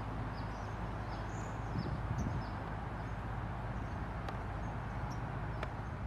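Outdoor ambience: a steady low rumble, with small birds giving short high chirps again and again and a few faint clicks.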